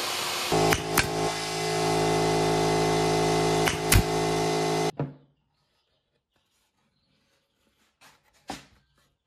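A table saw running briefly, then a pneumatic stapler firing four staples into plywood, in two quick pairs, over a steady machine hum. The noise cuts off suddenly about five seconds in, and only a couple of faint knocks follow.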